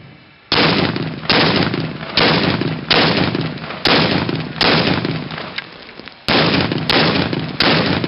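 A semi-automatic rifle fires steady single shots, about one a second, nine or ten in all, with a short pause a little past halfway. Each shot trails off in an echo.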